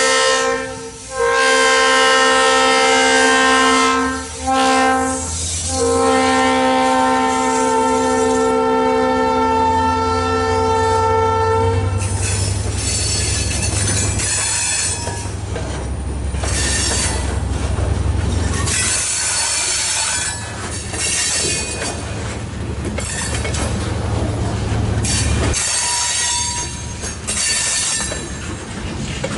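EMD GP39-2 diesel locomotive's horn sounding in blasts, the last held for about six seconds. After it the locomotive's low engine drone carries on as freight cars, lumber-loaded centerbeam flatcars among them, roll past with steady wheel-on-rail noise.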